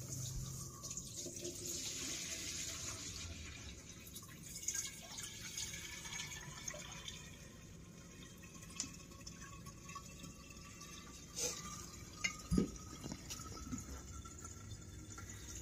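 Jet fuel with water and sediment poured from a glass jar into a Mr. Funnel filter funnel, then draining in a thin stream from the funnel's spout into an empty glass jar. A faint tone slowly rises in pitch as the jar fills, and a few light knocks come about three quarters of the way in.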